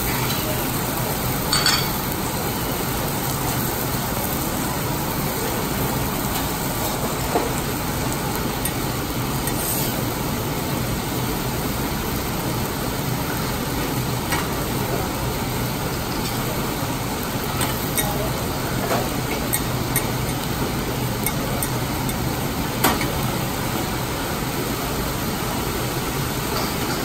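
Food sizzling steadily on a teppanyaki steel griddle, with a few sharp clicks as metal spatulas tap and scrape the plate.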